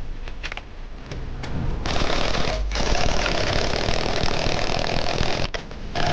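An electric power tool under repair, freshly lubricated with oil, being test-run: a few handling clicks, then the motor starts about two seconds in and runs steadily, drops out for a moment near the end and starts again.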